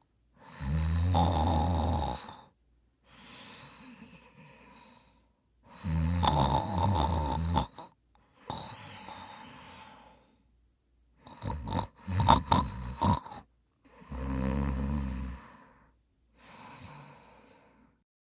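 A person snoring loudly: four deep, rattling snores, each about two seconds long, with quieter breaths between them. The third snore, about two-thirds of the way through, breaks into several short jerky snorts.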